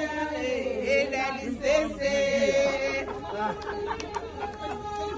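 A group of women singing and chanting together, overlapping voices over one long held note.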